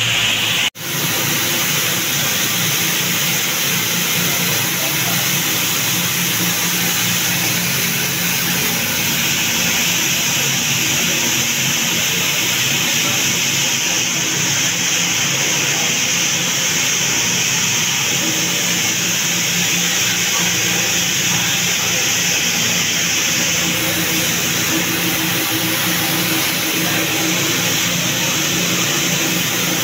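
DC-motor-driven wheat cleaning machine running steadily, grain rattling and sliding over its shaking sieve screens in a continuous noisy rush. The sound drops out for an instant under a second in.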